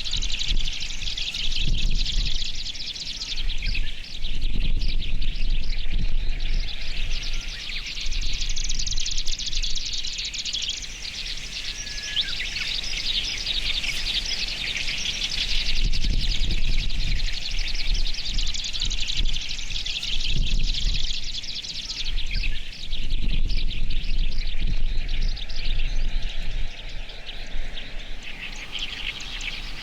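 Marsh grassbird song amid a dense, continuous chorus of other reedbed birds, many quick high notes overlapping. A low rumble comes and goes underneath.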